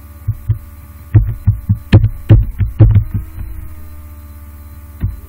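Computer keyboard keys typed in a quick run of about a dozen keystrokes, then a single further click near the end, over a steady electrical hum.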